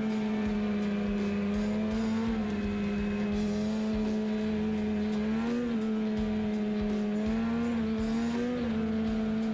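Polaris SKS 800 snowmobile's two-stroke engine running at a steady cruising pitch, with a few brief small rises and falls as the throttle is eased on and off.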